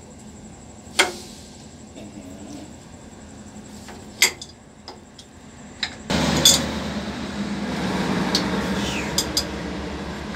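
Spanner clinking sharply against engine fittings, two louder knocks and a few lighter ticks. About six seconds in, a steady mechanical noise starts suddenly and keeps on.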